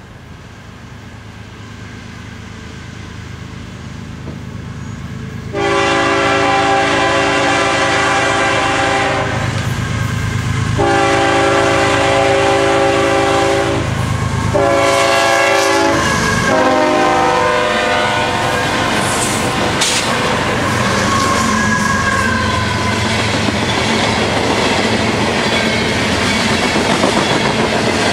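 CSX diesel freight train approaching, its engine rumble growing, then the lead locomotive's multi-chime air horn sounding four blasts, long, long, short, long: the standard grade-crossing signal. The last blast drops in pitch as the locomotive passes, and the steady rumble and clickety-clack of freight cars rolling by follows.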